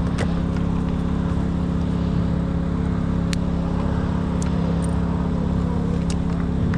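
Portable generator engine running at a steady, unchanging speed, with a few light clicks over it.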